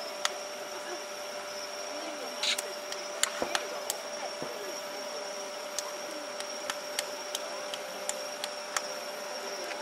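Distant fireworks shells bursting, heard as scattered sharp pops and cracks with one heavier boom about three and a half seconds in, over a steady hum.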